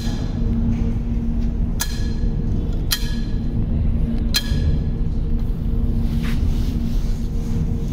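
Spring-loaded dial thickness gauge snapping shut on leather hides: several sharp metallic clicks, each with a short ring, about one to one and a half seconds apart, with a fainter one past the middle. A steady low machinery hum runs underneath.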